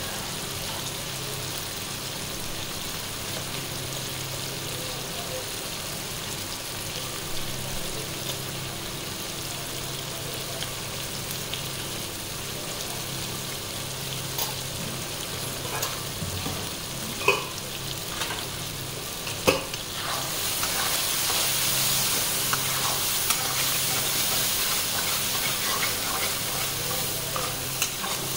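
Onions and tomatoes sizzling in hot oil in a metal kadai, with a few sharp clinks of a metal spoon against the pan. The sizzling gets louder about two-thirds of the way through as the mixture is stirred.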